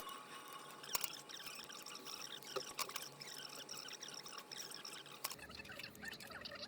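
Faint, scattered small clicks and light handling noises.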